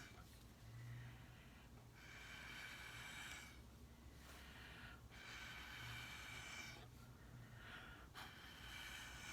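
Someone blowing through a drinking straw onto wet acrylic paint to push it across the canvas: three faint, breathy puffs of about a second and a half each, spaced roughly three seconds apart.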